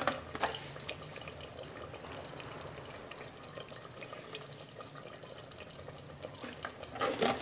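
Masala chicken curry simmering in a clay handi: a steady bubbling, sizzling hiss with small crackles. There is a sharp knock right at the start and a short louder clatter near the end.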